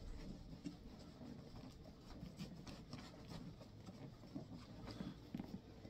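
Faint, irregular rubbing and scratching of a rag-wrapped finger working boot grease into the stitching of a leather boot.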